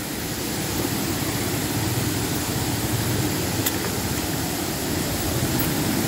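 Rushing water of a waterfall and rapids running high after heavy rain: a steady, even rushing noise.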